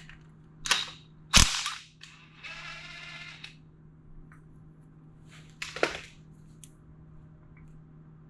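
Sharp metallic knocks and clanks of hand tools on the engine as the camshaft position sensor is being removed, the loudest about a second and a half in and another cluster near six seconds, with a short whirring buzz of about a second in between.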